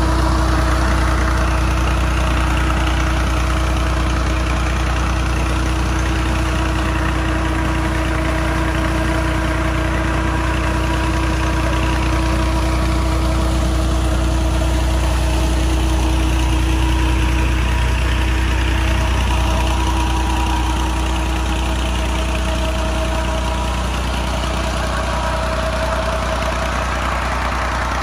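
Massey Ferguson 240 tractor's three-cylinder diesel engine running steadily, driving a shaft-coupled tubewell pump. Water gushes from the large delivery pipe into a concrete tank over the engine's steady drone.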